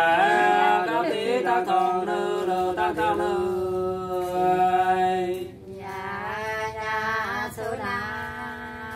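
Unaccompanied Nùng sli folk singing, voices drawing out long, wavering held notes with a brief break about five and a half seconds in.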